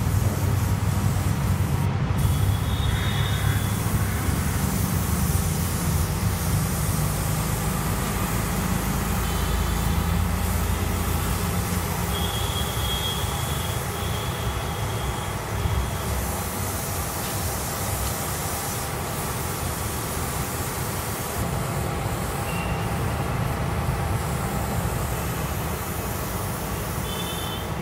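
A machine running steadily: a low engine-like hum under a continuous hiss. Short high-pitched tones come and go a few times.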